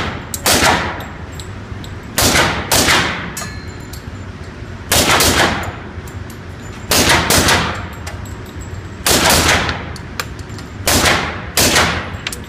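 Pistol shots fired in quick pairs, a pair roughly every two seconds, each shot sharp and loud with a booming reverberation from the indoor range.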